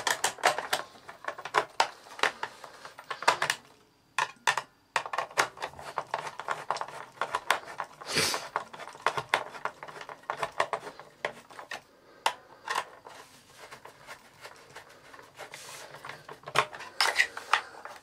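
Hand screwdriver turning a screw into the metal and plastic body of a Hoover Junior U1034 vacuum cleaner, with irregular clicks and small knocks of the screw, driver and parts being handled.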